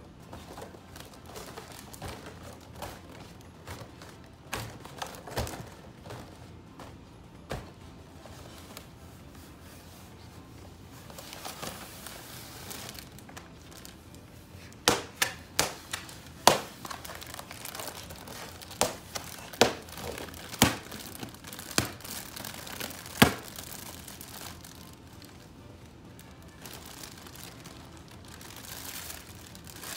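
Inflated foil cat balloon crinkling as it is squeezed and handled, with sharp crackles and thuds, most of them between about 15 and 23 seconds in.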